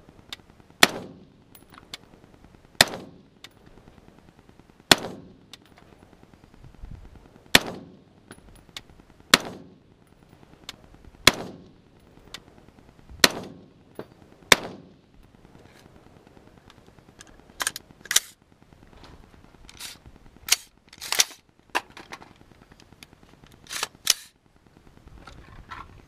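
Smith & Wesson M&P15 AR-15 rifle fired semi-automatically, about eight single shots spaced roughly two seconds apart, each with a rolling echo. In the second half come several thinner, sharper cracks, some in quick pairs.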